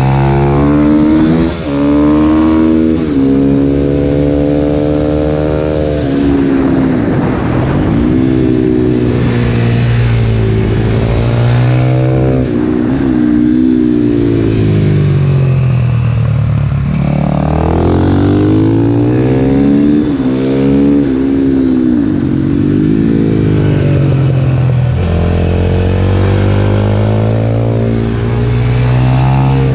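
Husqvarna FS450 supermoto's single-cylinder four-stroke engine heard close on board, revving hard. Its pitch climbs through gear changes and falls away as the throttle is closed, several times over.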